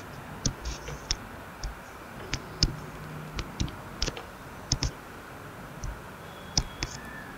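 Stylus tip tapping and clicking on a drawing tablet as lines are drawn: a string of short, sharp clicks at irregular intervals over faint room hiss.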